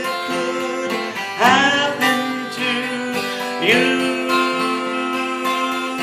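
A gospel song's closing line sung over acoustic guitar accompaniment, with long held notes as the song winds down.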